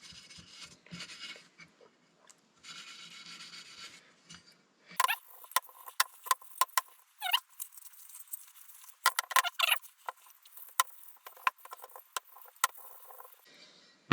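Hand cleaning of a metal engine part: cloth rubbing at first, then from about five seconds in a run of light, sharp metallic clicks and clinks with a few short squeaks as the part and tools are handled.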